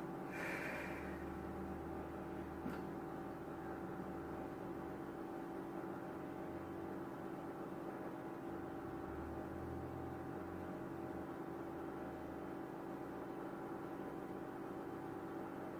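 A steady low mechanical hum, with a short rustle about half a second in and a faint click near three seconds.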